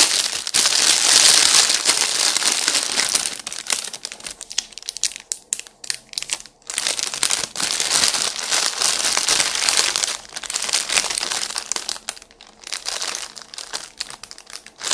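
Clear plastic packaging bag crinkling and rustling as it is handled and rummaged through, in irregular bursts that thin to scattered crackles about four to six seconds in and again shortly before the end.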